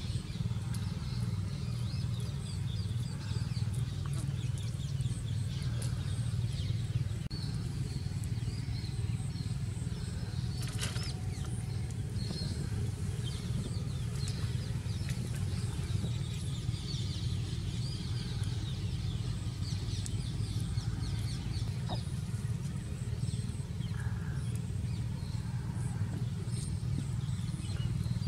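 A steady low rumble, with small birds chirping faintly and often over it, and a single sharp click about 11 seconds in.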